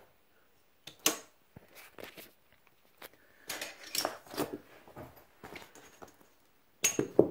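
Plastic side-release buckles being unclipped and webbing straps loosened from around an aluminium tripod on a fabric rod holdall: scattered clicks and rustling, loudest near the end.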